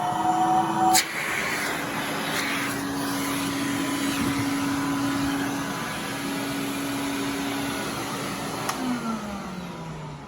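Electrolux Model 1205 canister vacuum running on carpet with an electric power nozzle, a steady hum over rushing air. About nine seconds in, the hum falls steadily in pitch and the sound dies away as the motor winds down.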